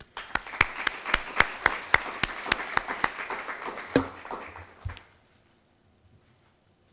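Audience applauding, a room of hands clapping that dies away about five seconds in.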